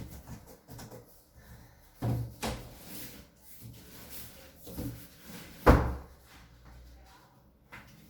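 A series of knocks and thuds from packaging being handled, about five of them, with the loudest a sharp thud just before six seconds in.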